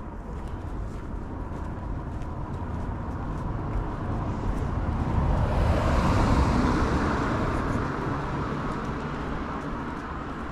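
A motor vehicle driving past on the road, its tyre and engine noise swelling to its loudest about six seconds in, then fading away.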